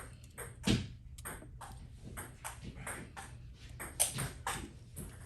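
Irregular small clicks and taps of hand tools and small iPhone parts being handled during a teardown, with two louder knocks, about a second in and near four seconds in.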